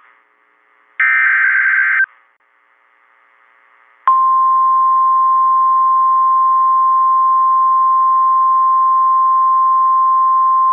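NOAA Weather Radio emergency alert. A one-second burst of SAME data tones comes about a second in. From about four seconds in, the long steady single-pitch warning alarm tone sounds, heralding a severe thunderstorm warning broadcast.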